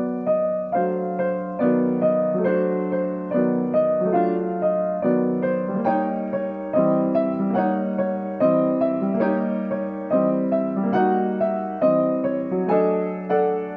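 Yamaha grand piano, right hand alone playing a steady run of seventh chords, a new chord struck roughly every second over a held lower note.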